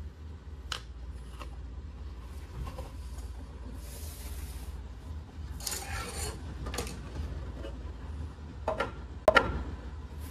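Gloved hands handling a diecast model car on its plastic plinth and a clear acrylic display case. Cloth rustles and rubs, with scattered light clicks and knocks, the sharpest knock near the end.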